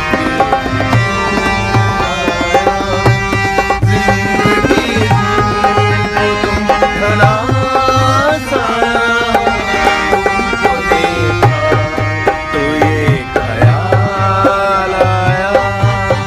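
Live Indian folk-style music: a man singing a Hindi song over harmonium chords, with deep hand-drum strokes keeping a steady beat.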